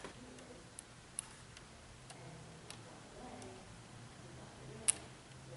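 A few light plastic-and-metal clicks and one sharper click about five seconds in, from a fuse jumper being handled and pushed into the relay socket terminals in a car's fuse box.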